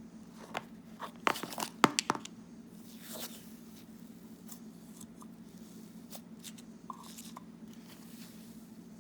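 Cloud slime with foam beads being played with by hand, giving a quick cluster of crunching, crackling clicks about a second in, then a few faint scattered clicks over a low steady hum.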